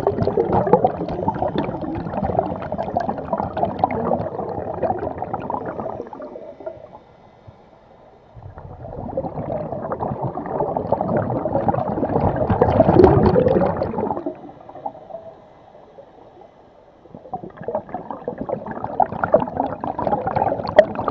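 Scuba diver's exhaled air bubbling out of the regulator underwater, in three long bursts separated by quieter pauses while the diver breathes in.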